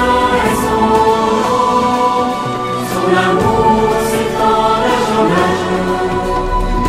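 Choir singing a sacred piece in long held chords that move to new notes every second or so.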